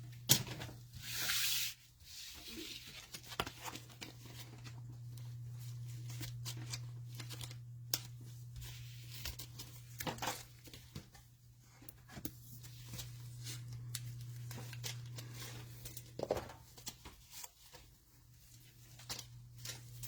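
Cellophane wrapper of a trading-card cello pack being torn open about a second in, then soft crinkling and scattered clicks of the wrapper and cards being handled, over a steady low hum.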